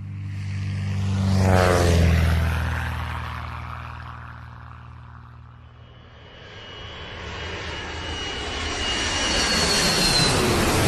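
Aircraft flying past: the engine sound swells, peaks about two seconds in and drops in pitch as it goes by, then fades. A second aircraft then approaches with a high engine whine, growing loud toward the end.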